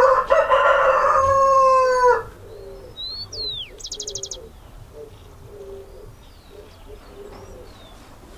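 A rooster crows once, one long call that drops at its end. Small birds then chirp, with a quick trill, over soft repeated low cooing notes.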